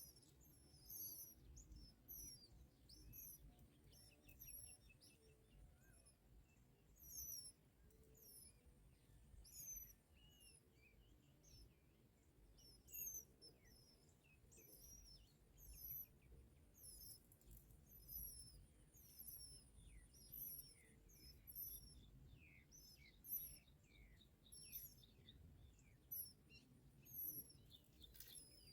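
Faint, high, thin bird chirps, short and repeated about twice a second, over a low background hum.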